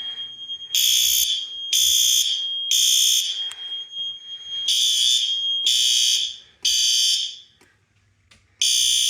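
Fire alarm horn sounding the temporal-three evacuation pattern, set off by a manual pull station: three half-second blasts about a second apart, a pause, three more, then one last blast near the end. A thin steady high tone runs under the blasts and stops about halfway through.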